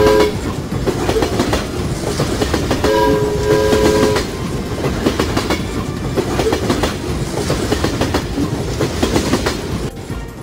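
Train running on rails with a dense clatter of wheels, its horn sounding a chord that ends just after the start and sounds again for about a second some three seconds in.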